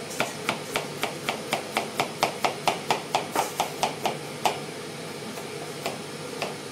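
Knife chopping fast on a cutting board, a steady run of about four strokes a second that stops about two-thirds of the way through, followed by a few scattered taps.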